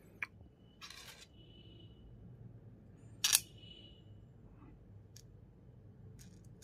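Small metal fasteners clinking as they are picked up and handled against a metal gantry plate: a faint click at the start, then two sharp clinks about one and three seconds in, each with a brief metallic ring.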